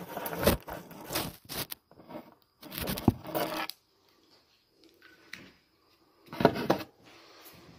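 Handling noise from a phone being set in place: fingers rubbing and scraping against the phone and its microphone in a few bursts of rustling, with near quiet between them.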